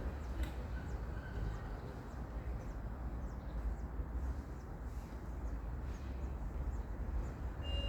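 Small birds chirping faintly in short, high, repeated notes over a steady low outdoor rumble.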